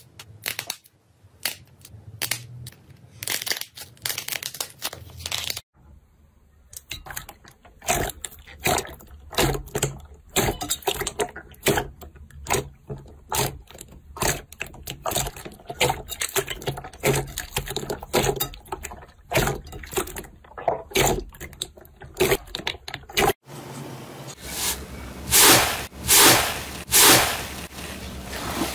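Hands squeezing and stretching slime: a quick, dense run of small sticky clicks and crackles, then near the end a few louder, longer squelches as thicker, fluffy slime is pressed and torn.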